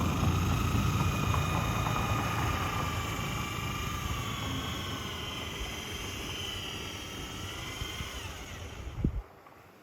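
Electric polisher spinning a buffing wheel: a steady motor whine over a rumble of the wheel working against the metal, switched off with a click about nine seconds in.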